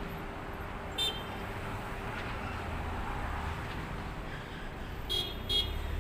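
Three short car-horn beeps, one about a second in and two quick ones near the end, over a low traffic rumble and a steady hum.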